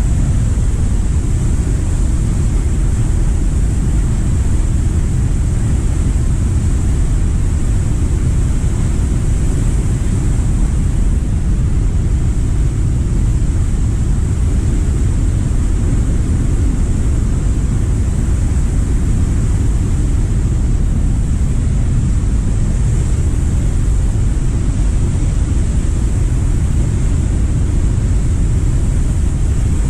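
Steady low roar of Cumberland Falls, a large river waterfall running in flood.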